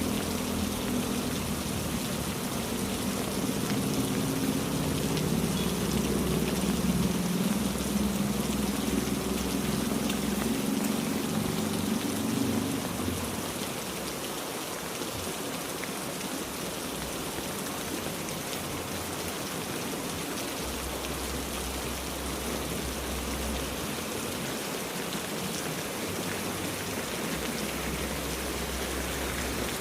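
Heavy rain falling steadily. A motor vehicle's engine runs underneath for the first dozen seconds and fades away about 13 seconds in.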